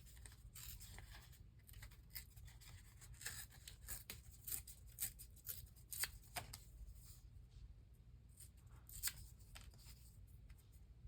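Cardstock being torn by hand, a run of short, irregular papery rips and rustles.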